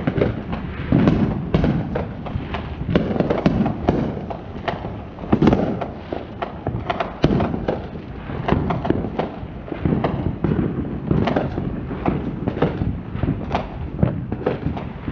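Fireworks going off all around in a constant, irregular barrage: several sharp bangs and cracks a second, with some deeper booms among them.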